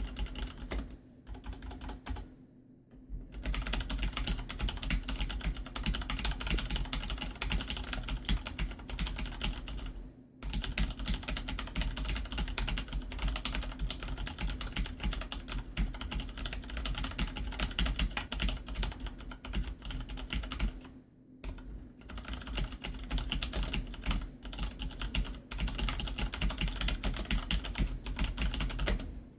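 Fast typing on a Filco Majestouch 2 Ninja mechanical keyboard with Cherry MX Red linear switches: a dense run of keystroke clicks and clatter. It pauses briefly about ten seconds in and again about twenty-one seconds in, after a short lull near the start.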